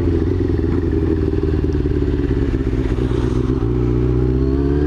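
Yamaha YZF-R6's inline-four engine slowing on a closed throttle, its note choppy and uneven. About three and a half seconds in it smooths out and climbs slightly as the throttle opens again.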